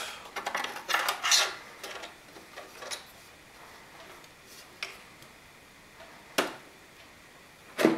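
Scattered clicks and knocks as hands unplug a graphics card's power cable and work its rear bracket inside the metal case of a 2009 Mac Pro to free the card from its slot. The clicks cluster in the first second and a half, then come sparsely, with sharp ones about six and a half seconds in and near the end.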